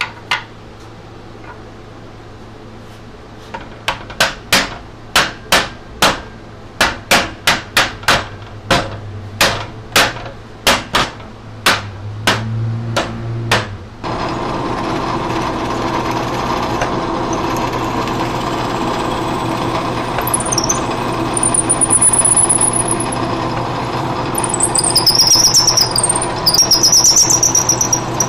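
A run of sharp hammer blows, about two a second, on the wheel's wooden segments and rim. Then a drill press runs steadily, and in the last third its bit squeals in high bursts as it bores into the wheel's rim.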